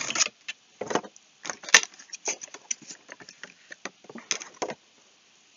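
Cardboard box and plastic packaging being handled and opened to take out a boxed vinyl figure: irregular rustling and crinkling with sharp clicks, the loudest click about two seconds in, stopping about five seconds in.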